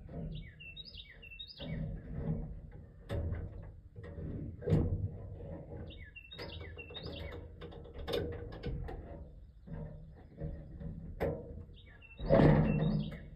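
A songbird singing a short phrase of quick, high notes three times, about five seconds apart, over low background noise with scattered knocks. A louder low sound comes near the end.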